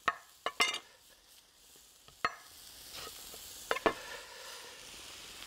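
Chef's knife cutting through a lemon on a wooden cutting board: several sharp knocks of the blade on the board, spread out, over the faint steady sizzle of lamb burgers frying on a griddle.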